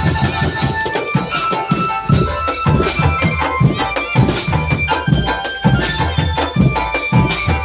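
Drum band playing: marching drums beating a steady rhythm under a melody of held notes.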